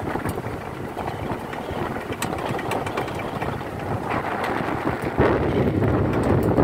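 Open electric tourist cart driving along a concrete bridge: steady rattle and road noise from the tyres and body, with small clicks throughout. It gets louder about five seconds in.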